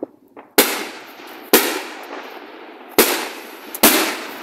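Four loud firework bangs at uneven intervals, each followed by a rolling echo that dies away.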